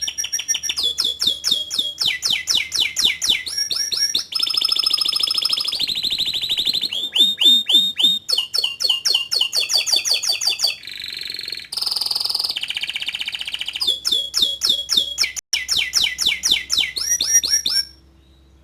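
Domestic canary singing a long unbroken song of fast, high trills and rolls, switching to a new trill every second or two. The song stops abruptly near the end.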